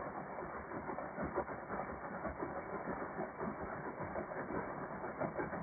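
Greenworks 80V battery-electric chainsaw milling a large log lengthwise, its chain chattering steadily through the wood. The sound is muffled, with no high end.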